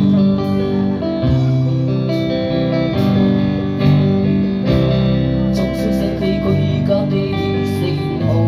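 Amplified live band playing: electric guitar chords over bass, with occasional drum hits.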